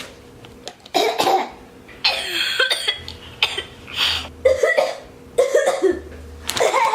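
A child coughing over and over: a run of short, separate coughs with brief gaps between them, put on as a weird, exaggerated cough.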